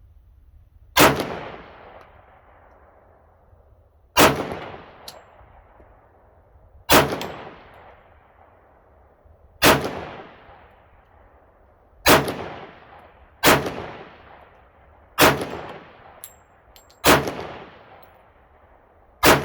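Nine single shots from a 1911 pistol in .45 ACP, each a sharp crack with a fading echo. The first few come about three seconds apart and the later ones closer together, about every second and a half to two seconds. The pistol cycles and feeds every round without a failure to feed.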